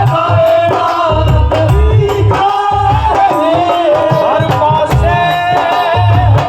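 Punjabi devotional jagran song: a voice singing a bending melody over sustained accompaniment, with hand drums beating a steady rhythm.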